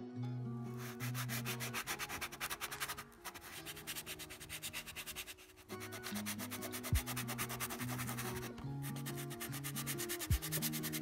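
Dry hard-pastel sticks (a round VistaArtista crayon and a square Mungyo stick) scratching back and forth across paper in rapid strokes. The swatches are laid in several passes with short pauses between them.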